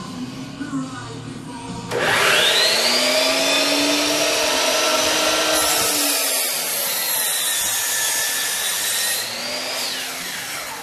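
Electric miter saw starting up with a rising whine and cutting through a round wooden spindle, then winding down near the end.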